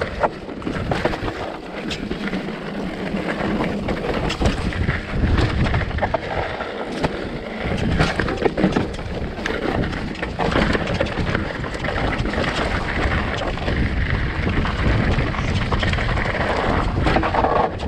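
Mountain bike riding fast downhill over rock and dirt: wind rushing over the microphone, tyres rumbling on the trail, and frequent sharp knocks and rattles from the bike.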